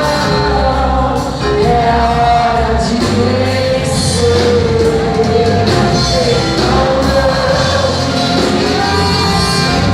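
Live gospel worship music: voices singing a held melody over a band with a steady bass line.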